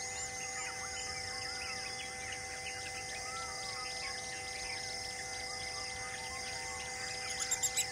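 A dense chorus of birds chirping and whistling over a steady background drone. Near the end one bird gives a quick run of loud, high repeated notes.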